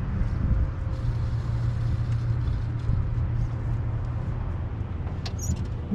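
Steady low rumble with a faint hiss over it, even throughout and with no clear tones or rhythm.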